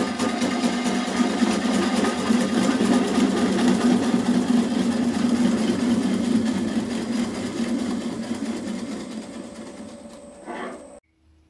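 Bowl gouge cutting the inside of a large wooden bowl spinning on a Oneway 2436 lathe: a steady, rough shaving noise with a fast, even flutter, growing lighter over the last few seconds and cutting off abruptly near the end.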